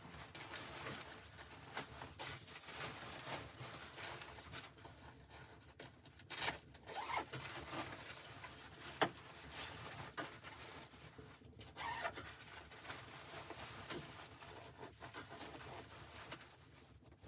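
Irregular rustling and scraping, with scattered small knocks and one sharp click about nine seconds in.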